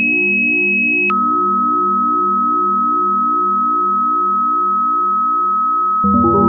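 Electronic background music: a steady pure high tone that drops to a lower pitch about a second in, held over a pulsing low synthesizer chord pattern, with a fuller organ-like chord coming in near the end.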